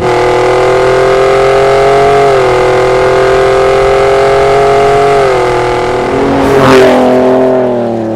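A 2017 Ford F-150 Raptor's 3.5-litre twin-turbo EcoBoost V6 running through a Borla ATAK exhaust, holding a steady, loud note as the truck drives toward the microphone. It passes close by about seven seconds in with a brief rush of noise, then its pitch drops and the sound fades as it pulls away.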